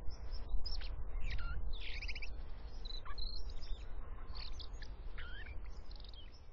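Birds chirping and calling in short, varied notes and quick pitch glides, over a steady low rumble.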